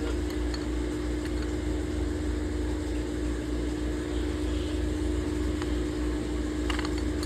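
Steady machine hum with a constant low tone, unchanging throughout, with a couple of faint clicks shortly before the end.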